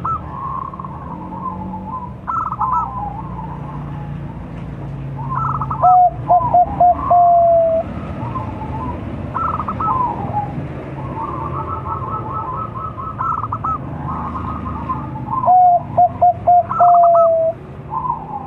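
Five-month-old Bangkok-type zebra dove (perkutut) cooing its song twice: a quick run of short clipped notes that ends in one long held note. Fainter, higher chirping calls from other birds go on all around it.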